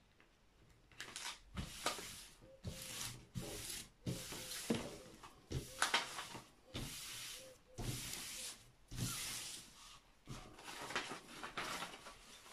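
Hands sweeping and rubbing across the plastic protective film of a diamond painting canvas: a dozen or so short swishing rubs, starting about a second in. The strokes smooth the film flat to push out air bubbles, which would otherwise leave lines in the canvas.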